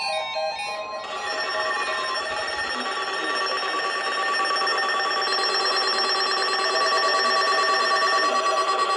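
Many weather radios sounding their alert tones at once, set off by the NOAA Weather Radio Required Weekly Test: a dense chord of steady electronic beeps and tones that starts about a second in, grows louder, and turns to a fast pulsing near the end.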